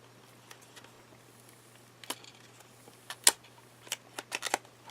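Packaging handled as a pull tab on the back of a retail box is worked open: scattered sharp clicks and snaps, with the loudest snap about two-thirds of the way in and a quick run of smaller clicks after it.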